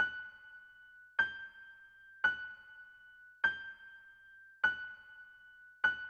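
A high, bell-like ringing note struck six times, evenly about every 1.2 seconds, each strike ringing out and fading before the next.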